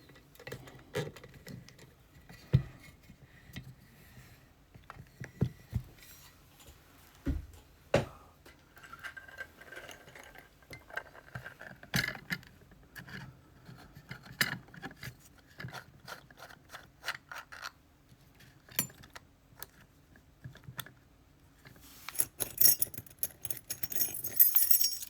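Small metal clicks and taps of a padlock and lock-picking tools being handled, scattered irregularly, with a burst of light metallic jingling and clinking in the last few seconds.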